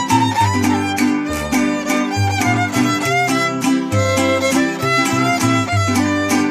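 Violin playing a lively melody over a strummed guitar accompaniment, with bass notes alternating in an even, steady rhythm.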